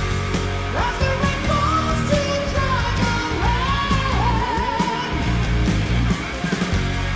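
Heavy metal band playing live: distorted electric guitar, bass and drums, with a high lead line held and bent with vibrato over them.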